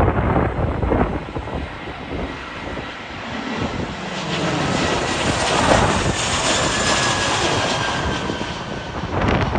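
Jet airliner engines passing on landing approach: a rushing noise that swells to its loudest about six seconds in, with a faint whine slowly falling in pitch. Wind buffets the microphone near the start and again near the end.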